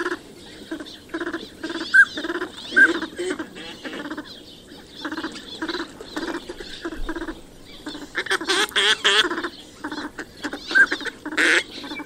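Northern pintail ducks calling: a steady run of short quacking calls, two or three a second, with a few brief whistled notes mixed in and a denser flurry of calls about eight to nine seconds in.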